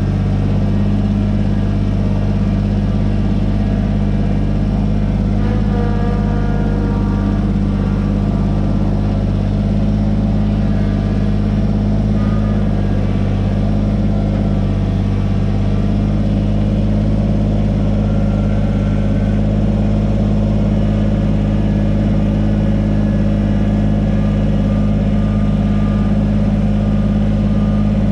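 Engine running steadily at a constant speed, with no change in pitch or loudness.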